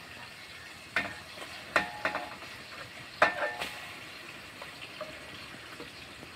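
A steel bowl knocks against the rim of a metal cooking pot about four times, each knock ringing briefly, as ginger-garlic paste is scraped in. Under the knocks there is a faint, steady sizzle of the paste frying in hot oil with onions.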